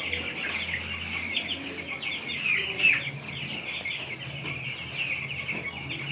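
A flock of week-old broiler chicks peeping continuously, many high, short cheeps overlapping, with one louder chirp about three seconds in. A steady low hum runs underneath.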